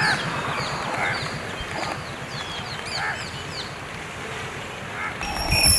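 A chorus of birds calling: many quick, falling chirps over repeated lower calls about once a second. About five seconds in, a steady high-pitched tone joins them.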